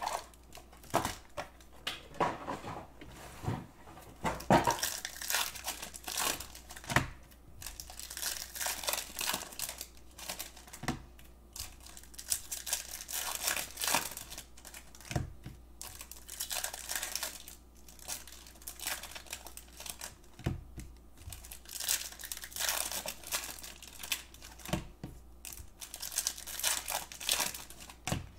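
Foil wrappers of Bowman Chrome baseball card packs being torn open and crinkled by hand, an irregular crackling with sharp rips and scattered short clicks.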